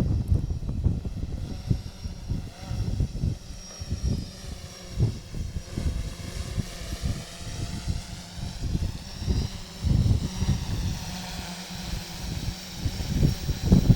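Yuneec Typhoon H hexacopter's rotors whining in flight, the pitch of the whine slowly rising and falling as the drone manoeuvres. Wind gusts buffet the microphone throughout.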